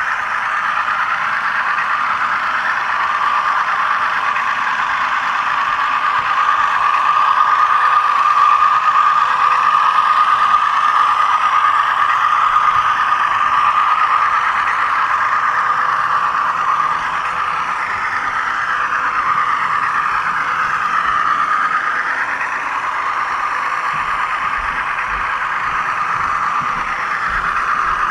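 HO scale model train running along the track, heard up close from a camera riding on it: a steady motor-and-gear whine with wheel-on-rail rattle, the pitch wavering slightly.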